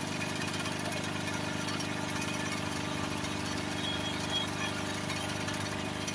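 Steady low mechanical hum made of several held tones over a light hiss, with a faint tap about four seconds in.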